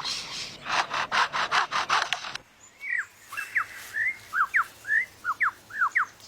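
A bird calling: a fast run of harsh rasping notes, about five a second, that stops suddenly, followed by a string of short, clear whistled notes that slide in pitch, mostly downward, with an odd, alien-like quality.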